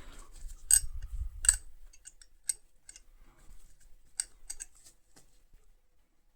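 Steel spanners being handled, giving a series of sharp, irregular metal clicks, with low handling rumble during the first second and a half.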